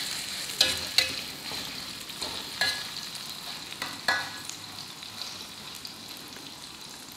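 Cubed tofu frying in hot oil in a metal wok, sizzling steadily. A metal spatula clanks and scrapes against the wok several times in the first four seconds as the cubes are stirred, and the sizzle fades a little toward the end.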